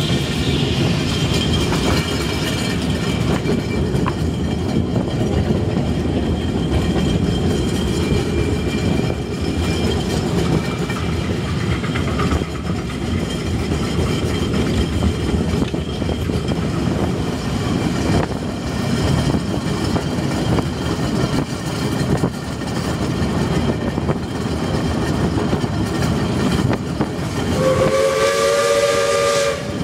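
Steam-hauled train cars running along the track, a steady rumble and clatter of wheels on rail, heard aboard an open passenger car. Near the end the steam locomotive's whistle blows for about two seconds.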